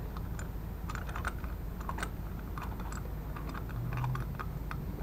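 Faint, irregular small clicks and ticks of fingers turning the long float bowl nut on a Cub Cadet SC700E mower's carburetor to remove the float bowl.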